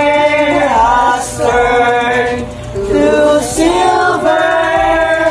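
A small group of mostly women singing a song together in unison, in phrases of a second or two with long held notes.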